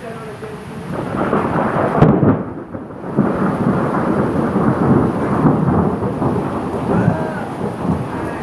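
Thunder rumbling through a rainstorm. The rumble builds about a second in, peaks in a loud crack around two seconds in, and keeps rolling over the steady hiss of rain.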